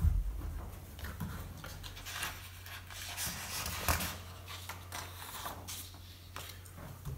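Pen scratching on paper as a short phrase is written, then the paper sheets being handled and slid across the desk, with a sharp knock about four seconds in. A steady low hum runs underneath.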